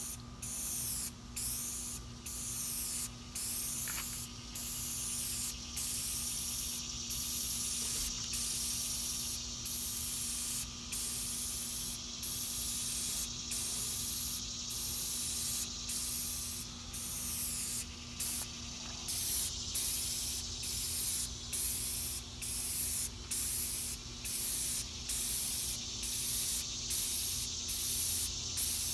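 Aerosol spray paint can spraying: a loud, steady hiss in a long run of passes, broken by brief gaps about once a second where the nozzle is let go between strokes.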